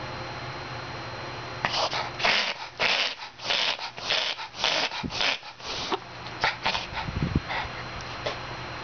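A mixed-breed dog reverse sneezing: a run of rapid, noisy inhalations through the nose, about two a second, starting nearly two seconds in, then dying away into a few weaker ones. It is the throat spasm of a reverse-sneezing fit, here a long one.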